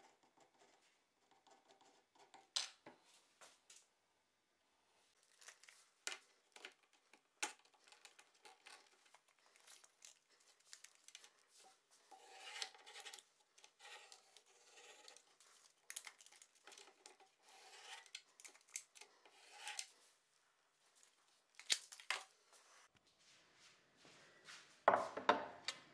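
Pencil lead scratching across plywood in short strokes and sweeps, with scattered small clicks and knocks of a plastic tape measure case being handled. A louder knock and rattle comes near the end.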